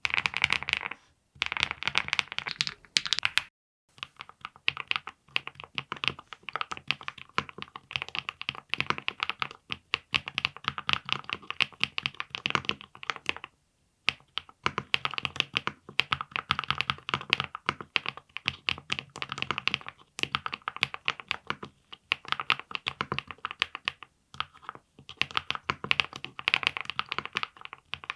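Fast typing on a VXE75 mechanical keyboard with a PC plate, full foam and linear switches: dense runs of keystroke clacks with brief pauses between bursts.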